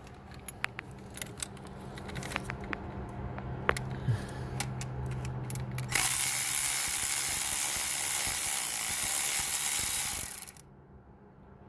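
Ratchet wrench with a 10 mm socket working a bolt in a car's engine bay. There are scattered clicks and knocks for about six seconds, then about four seconds of fast, continuous ratcheting that stops suddenly.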